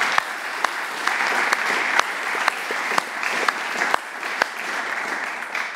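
Audience applauding steadily, with individual sharp claps standing out from the mass of clapping.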